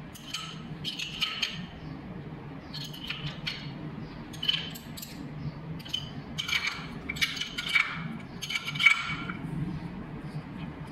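Short clusters of ringing metal clinks and rattles from hand work on an old shower valve's brass stems, with a wrench fitted onto a stem nut near the end.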